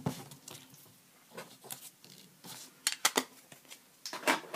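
A handheld ink pad pressed, dabbed and rubbed over die-cut paper gears on a paper-covered table: soft scuffing and rustling, with a few sharp clicks about three seconds in.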